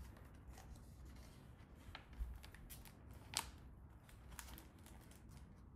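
Faint paper rustling and a few light clicks as a page of a hardcover picture book is turned, the sharpest click about three seconds in.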